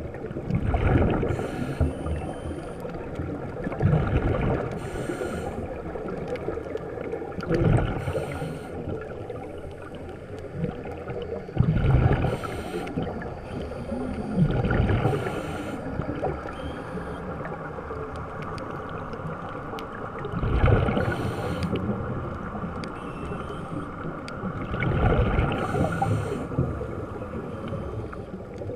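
Scuba regulator breathing heard underwater: loud bursts of exhaled bubbles every three to five seconds, with a steady watery hiss between them.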